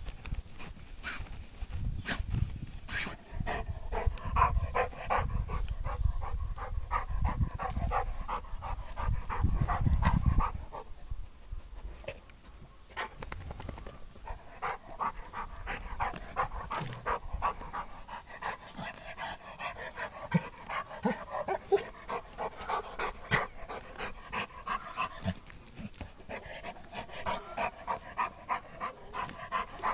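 Rottweiler digging in loose soil, its front paws scraping and scratching the dirt with a heavy low rumble for about the first ten seconds. Through the rest, the dog pants quickly and evenly, two or three breaths a second, between bouts of scratching.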